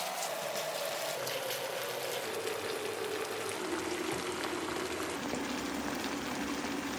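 A pot of onion, pepper and tomato stew base sizzling and simmering on the heat: a steady hiss. Over it a single tone slowly falls in pitch.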